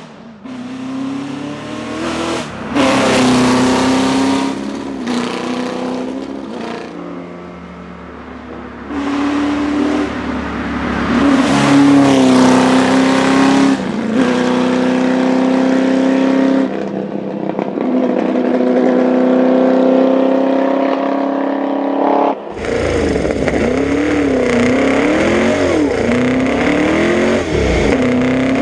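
Serenissima MK168's V8 racing engine driven flat out: it revs hard, climbs in pitch again and again with drops at the gear changes and lifts. Near the end the pitch swings up and down repeatedly, as the engine revs and lifts through a run of bends.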